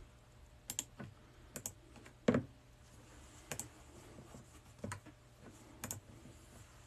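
Scattered clicks on a laptop keyboard, several in quick pairs, about one a second, with a fuller knock a little over two seconds in.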